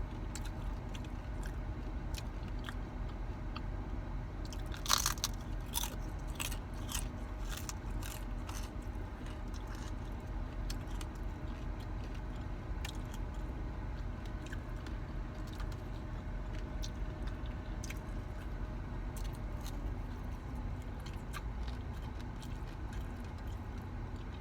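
Close-up crunching and chewing of a hard taco shell, with crisp crackles that come thickest a few seconds in. Underneath runs a steady low hum from the parked car's air conditioning.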